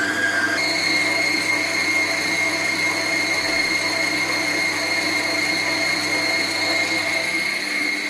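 Electric stand mixer running, its beater creaming softened butter and sugar in a steel bowl: a steady motor whine that steps up in pitch about half a second in.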